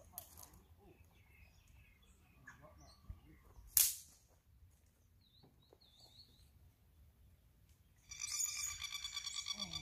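Faint bird chirps in quiet open air, with one short, sharp swish just before four seconds in, the loudest sound. From about eight seconds in, a bird gives a rapid, pulsing call, several notes a second.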